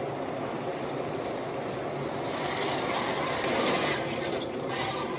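Steady road and wind noise inside a car driving at highway speed, swelling a little about halfway through, with a faint click or two.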